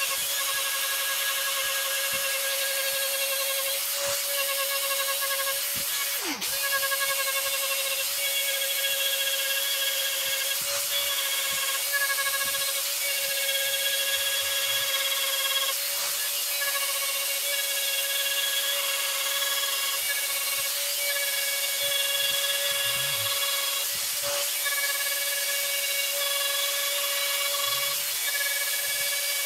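High-speed handheld rotary tool running with a steady high whine as its small burr carves a pattern of short repeated cuts into a turned wooden disc, the burr grinding and rasping in the wood.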